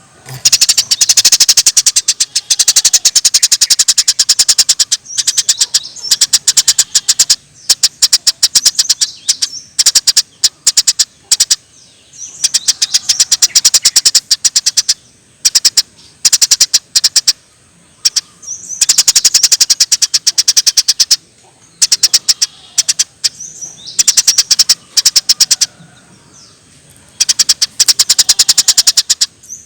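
Eurasian tree sparrow chirping excitedly: fast runs of sharp, high chirps in bouts of a few seconds, broken by short pauses.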